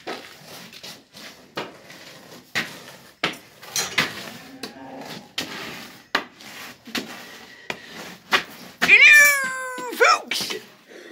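Knocks and scrapes of a long-handled barn scraper or shovel on a concrete floor. About nine seconds in comes a loud, drawn-out animal cry of a bit over a second that drops in pitch at the end.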